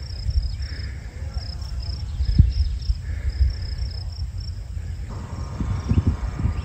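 Insects chirping in a steady run of short, high, repeated pulses, over a low wind rumble on the microphone that gets choppier near the end.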